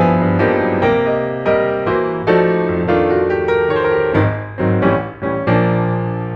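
Background piano music: notes and chords struck about twice a second, each ringing and fading.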